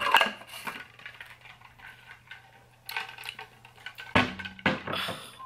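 Clicks and clatter of a plastic tumbler's flip lid and straw being handled, with a louder knock about four seconds in as the cup is moved and set down.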